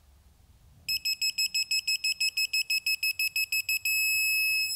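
Craftsman digital torque wrench's electronic buzzer beeping rapidly, about seven high beeps a second for some three seconds, then switching to one steady tone near the end. This is the wrench signalling that it has reached its 90-degree angle target.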